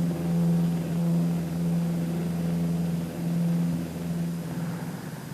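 Propeller airplane's piston engine droning at a steady pitch, swelling and dipping in loudness, then fading near the end.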